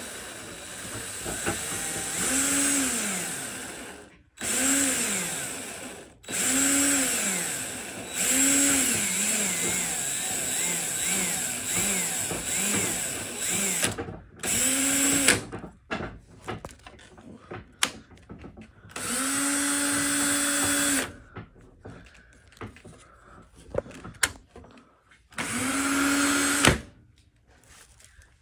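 A power tool's electric motor switched on and off in repeated short runs, each one rising in pitch as it spins up and falling as it winds down. One run about two-thirds through holds a steady pitch for a couple of seconds.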